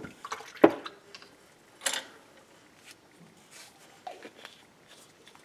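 Small objects handled on a work table: a sharp knock at the start, a louder click about half a second later, and a brief scrape about two seconds in, then only faint light ticks.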